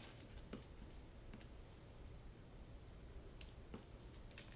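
Near silence broken by about five faint, sharp, scattered clicks, the small sounds of tools and wire being handled while a wire is tinned for soldering.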